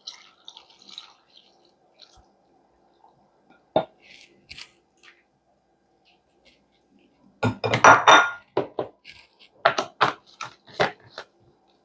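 Kitchen clatter: a single knock, then a cluster of sharp knocks and rattles, loudest in a dense burst about two-thirds of the way in, like blender parts and utensils being handled on a counter.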